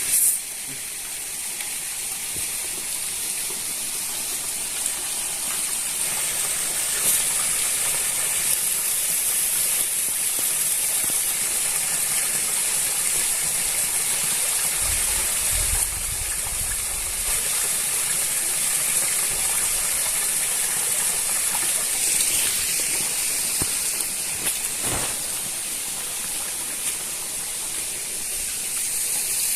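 Food frying in a pan, a steady sizzling hiss.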